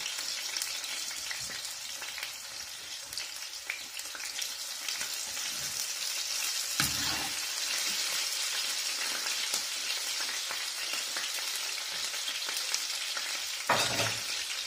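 Spice-seasoned meat sizzling steadily as it is sautéed in a pan on a gas stove. Two short knocks sound over the sizzle, about seven seconds in and near the end.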